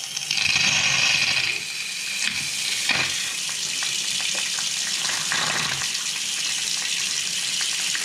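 Cold-water faucet running full into a utility sink, the water hissing and spitting with air in the line after a new well pump was fitted. The rush is loudest in the first second or so, then runs steadily.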